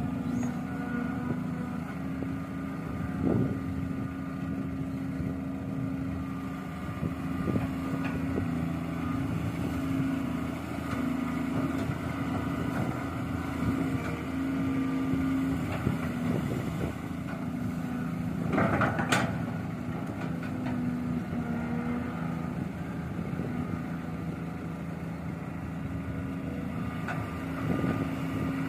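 Excavator's diesel engine running steadily at work, with scattered knocks and one loud metallic clank or scrape about two-thirds of the way through.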